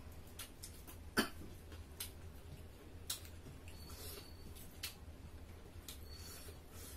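Eating sounds at a table: scattered small clicks and mouth smacks of people eating with their hands from plates and chewing, the sharpest click about a second in, over a low steady hum.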